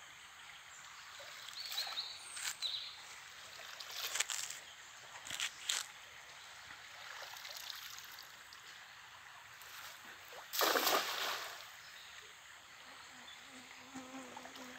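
Shallow stream water sloshing and splashing as a man wades and handles a wet cast net, with a few short splashes early on. About ten seconds in comes the loudest sound, a longer splash as the weighted cast net lands on the water.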